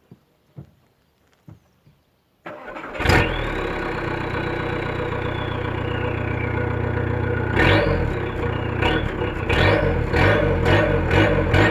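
VW Golf Mk4 TDI turbodiesel engine, after a few faint clicks, cranked and starting about two and a half seconds in, then idling with a high whistle that slowly falls in pitch. From about eight seconds in the engine is blipped repeatedly, each rev bringing a short whistle that rises and falls with the engine speed.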